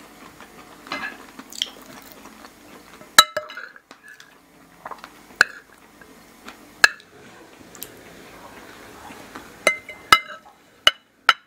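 Metal forks and spoons clinking and scraping on ceramic dinner plates while eating. Single sharp clinks come every second or two, with a quicker run of four near the end.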